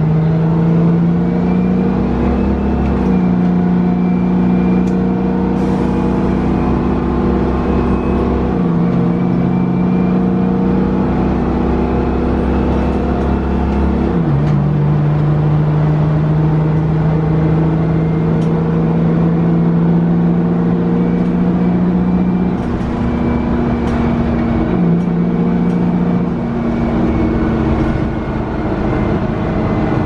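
Detroit Diesel 6V92TA two-stroke V6 turbo diesel of a 1990 Orion I bus running as the bus drives, heard from inside the cabin at the rear. The engine note holds steady for stretches and steps up and down in pitch several times.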